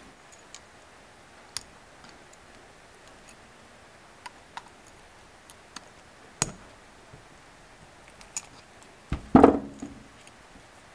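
Scattered light metallic clicks of a wire circlip being worked into the wrist-pin bore of an aluminium piston with needle-nose pliers, with one sharper click a little over halfway and a louder clatter of handling near the end.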